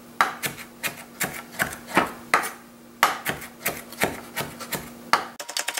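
Kitchen knife chopping fresh cilantro on a wooden cutting board, about three cuts a second with a short pause about halfway, speeding up into rapid chopping near the end.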